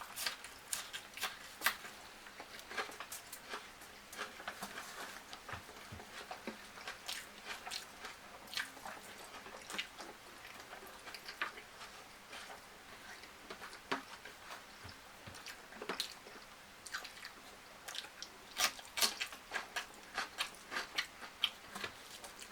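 A person chewing and biting food close to the microphone: irregular crisp crunches and wet clicks, the loudest cluster coming about four-fifths of the way in.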